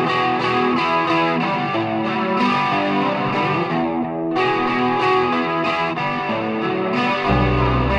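Intro music: guitar with distortion and effects playing a melodic phrase, with bass coming in near the end.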